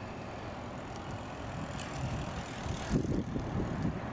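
Street traffic growing louder as an SUV drives toward the microphone, with a Siemens S70 light-rail streetcar approaching behind it. From about three seconds in, wind buffets the microphone in low, uneven gusts.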